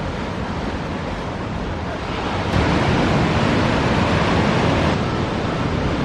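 Ocean surf: a steady wash of breaking waves with wind noise on the microphone, growing louder about two and a half seconds in.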